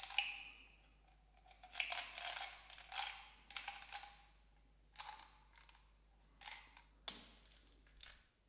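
Coated chewing-gum pellets clicking and rattling against each other and the plastic bottle as they are tipped from a palm back into the tub, in several short bursts of clatter. Near the end the bottle's flip-top cap clicks shut.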